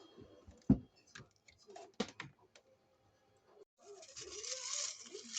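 Kitchen handling sounds: a few light clicks and one sharp knock, then from about four seconds in a steady dry rustling hiss.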